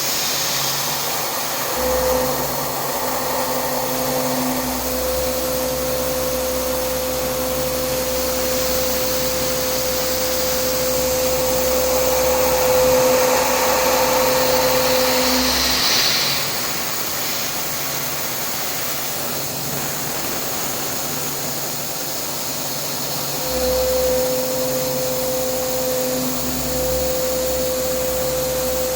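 CNC vertical machining centre milling carbon steel with a carbide end mill: a steady hiss with a cutting whine and low hum that run about 2 to 16 seconds in, stop for several seconds, then start again near the end.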